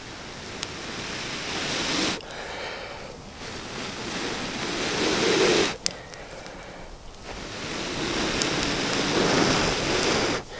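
A person blowing hard into a smouldering tinder bundle of dry grass and old man's beard, three long breaths that each build louder and cut off sharply, coaxing the ember into flame.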